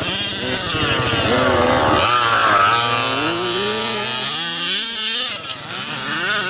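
Small two-stroke petrol engines of 1/5-scale RC buggies (HPI Baja type) racing on dirt, several at once. Their pitch rises and falls with the throttle.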